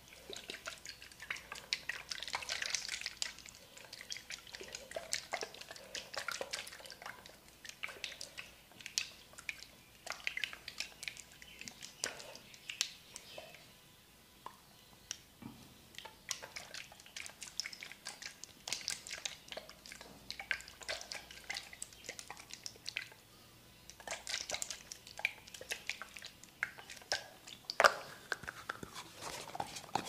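Hands-on massage sounds: irregular soft clicks, crackles and rubbing of hands working on a person, with a few sharper taps.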